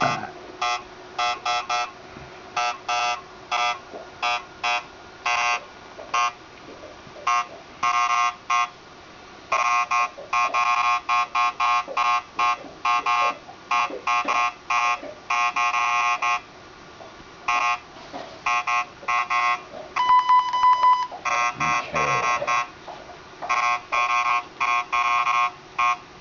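Geiger counter beeping irregularly, one short electronic beep per detected count, at about 210 counts a minute from a rainwater sample under its probe: a rate well above its alert level. About twenty seconds in, one longer steady beep sounds for about a second.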